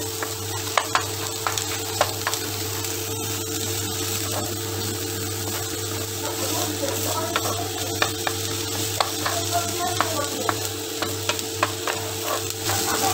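Diced onion frying in a non-stick pan, sizzling, while a wooden spatula stirs it with many short scrapes and taps against the pan. A steady hum runs underneath.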